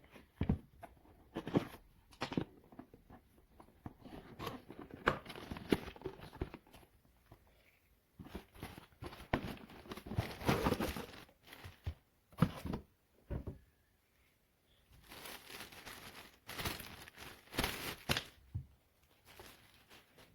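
Packaging being handled: irregular rustling, crinkling and tearing, broken by a few sharp clicks and short pauses.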